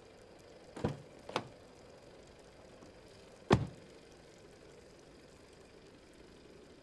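Car door being opened and shut: two quick knocks about a second in, then a louder thud of the door closing about three and a half seconds in.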